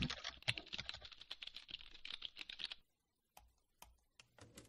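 Rapid typing on a computer keyboard: a dense run of quick key clicks that stops about three seconds in, followed by a few single clicks.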